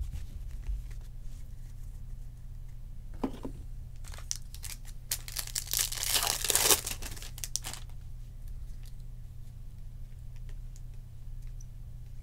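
Foil wrapper of a 2020 Topps Chrome jumbo pack being torn open by hand, crinkling and tearing for a couple of seconds about halfway through, with a few shorter rustles of handling before it. A low steady hum runs underneath.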